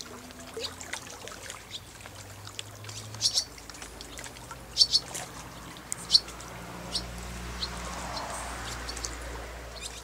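Barn swallows giving short, sharp, high chirps and twitters, the loudest a few seconds in, over river water lapping and trickling at the bank.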